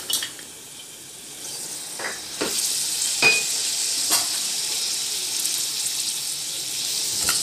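Crushed onions and ginger-garlic paste sizzling in sesame oil in a pressure cooker, stirred with a metal spoon that scrapes and clicks against the pot a few times. The sizzle grows louder about a second and a half in, then holds steady.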